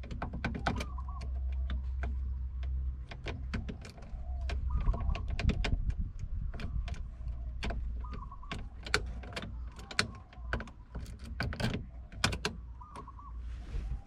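Key in the worn-out ignition lock cylinder of a 1996 Toyota Tacoma being turned and worked by hand: a long run of irregular sharp clicks and taps over a low rumble.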